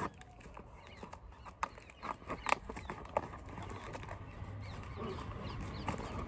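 A knife slitting the packing tape along the top seam of a cardboard box: scattered scrapes and clicks, then a steadier scraping from about four seconds in.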